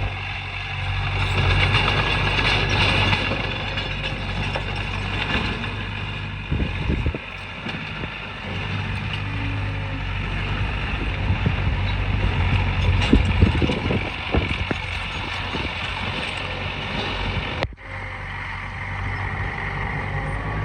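Heavy diesel earthmoving machinery running steadily, with scattered clanks in the middle and a brief drop-out near the end.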